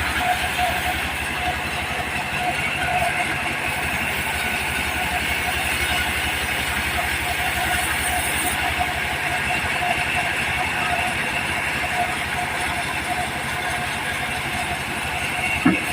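Diesel engine of a mobile sawmill running steadily at a constant speed, with a brief knock near the end.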